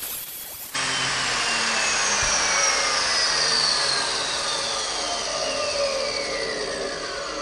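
A Porter-Cable 14-inch abrasive chop saw grinds through quarter-inch steel angle iron for a moment. Then its motor and abrasive wheel spin down freely, with a whine that falls slowly and steadily in pitch.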